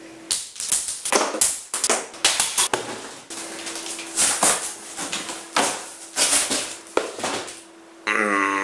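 Cardboard box being ripped apart by hand: a long run of irregular tearing and crunching crackles. Just before the end a loud voice with sliding pitch cuts in.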